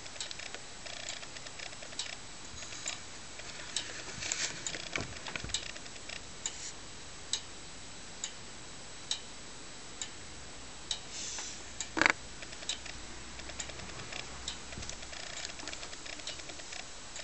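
Pendulum movement of a DUFA longcase clock ticking, a faint click a little under once a second. A single louder knock sounds about twelve seconds in.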